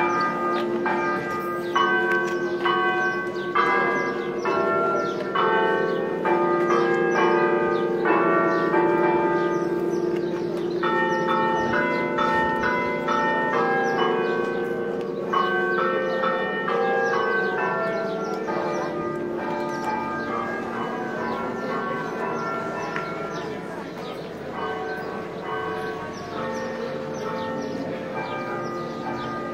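Church bells ringing a peal, several bells of different pitch struck in quick, overlapping succession, each one ringing on. The peal grows somewhat quieter over the last third.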